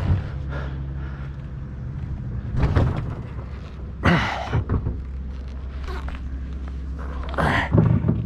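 A steady low engine hum, with several knocks and thumps of things being handled.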